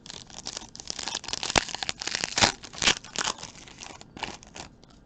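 A trading card pack's wrapper being torn open and crinkled by hand, with irregular crackling and sharp rips that die away shortly before the end.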